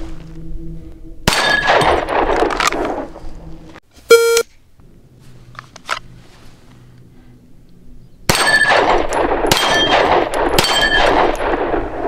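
9mm pistol shots fired at steel plate targets, each crack followed by the ringing clang of a struck plate and an echo. A group of shots comes about a second in and a quicker string from about eight seconds on, with a short, very loud ringing ding a little after four seconds.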